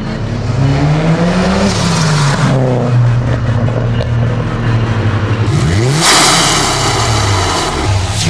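2022 Subaru WRX's turbocharged flat-four accelerating hard, its engine note climbing in pitch and dropping back at each gear change. A burst of hiss comes about six seconds in.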